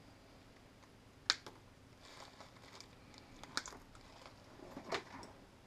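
A few sharp clicks and light taps from small parts and hand tools being handled on a workbench, the loudest about a second in, with others later.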